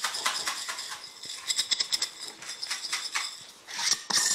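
Dry breadcrumbs and seasonings rattling inside a lidded glass mason jar as it is shaken by hand, in several rounds of quick shaking with short pauses between.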